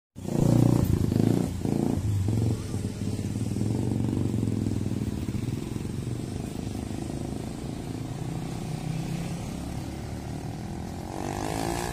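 Motor scooters and small motorcycles riding past, their engines running; the loudest passes close in the first couple of seconds, then a steadier mix of engines carries on.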